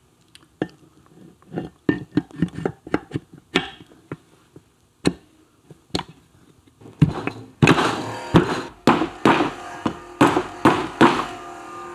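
A mallet tapping an aluminium side cover down onto a Triumph Tiger Cub engine's crankcase over a new gasket: light clicks and knocks as the cover is fitted, then from about seven seconds a quick run of harder taps. The cover is not settling down fully.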